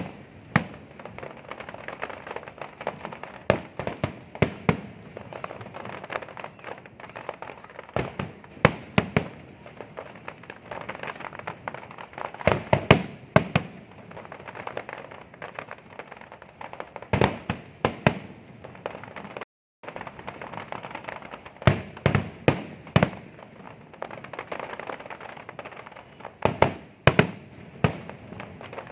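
Fireworks display: a continual crackle with many sharp, loud bangs at irregular intervals, several coming in quick clusters. The sound cuts out completely for a moment about two-thirds of the way through.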